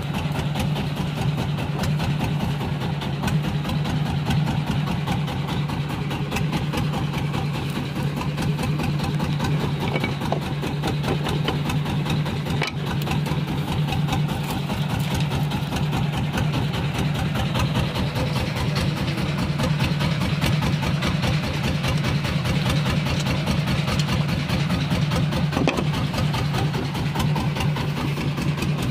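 A fishing boat's engine running steadily, with a fast, even chugging.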